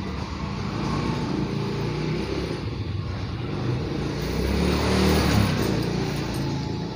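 A motor vehicle engine running and growing louder to a peak about five seconds in, then easing off, like a vehicle passing by.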